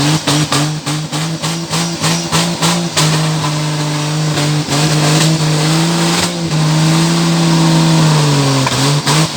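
Jeep Cherokee engine in a tube-frame off-road buggy running hard under load, its pitch holding fairly steady with small rises and dips. The sound is broken by rapid choppy drops during the first three seconds and again near the end.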